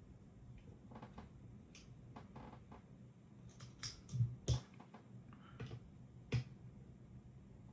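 Scattered small clicks and taps of hands working with tools and small parts, the sharpest a cluster a little past halfway and one more near the end.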